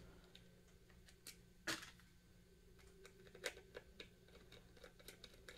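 Near silence broken by a few faint clicks and taps of a plastic handheld multimeter being handled, with a screwdriver worked against the screw on its back. The clearest click comes about a third of the way in.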